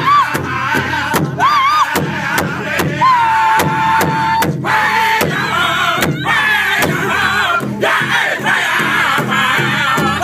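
Powwow drum group: several men striking one large bass drum together in a steady beat, a little over two strokes a second, while singing a drum song. A high voice with sliding calls and one long held note leads, then the group's voices take up the song.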